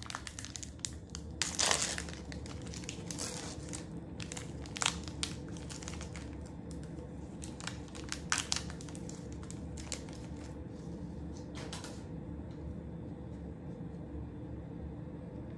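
Trading-card pack wrapper crinkling and crackling as it is torn open and the cards are pulled out, irregular crackles for about twelve seconds, then only a low steady hum.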